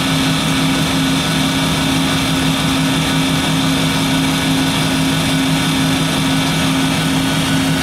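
Weber MK 1/1-1350 flow-through slag grinder running with its roller spinning: a steady machine hum with a higher whine over a hiss.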